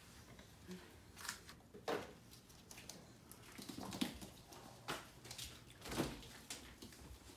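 Scattered soft knocks and clicks of household movement, with a refrigerator door pulled open about six seconds in.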